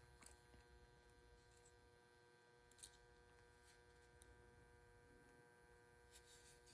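Near silence: room tone with a faint steady hum and a few faint, short clicks.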